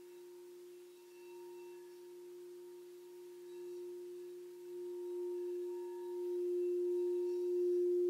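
White frosted crystal singing bowl rimmed with a wooden mallet, giving one steady ringing tone with faint higher overtones that swells steadily louder as the mallet keeps circling.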